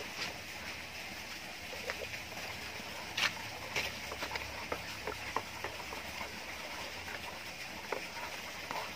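Irregular light crackles and rustles of footsteps on dry leaf litter over a steady outdoor hiss.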